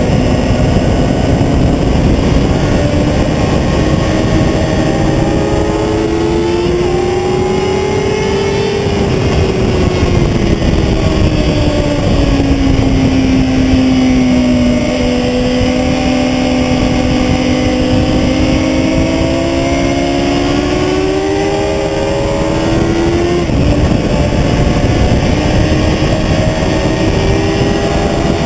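Sportbike engine running hard on a race track, its pitch climbing, easing off and climbing again through the corners, with two abrupt pitch steps about six and a half and twenty-three seconds in, typical of gear changes. A steady rush of wind and road noise runs under it.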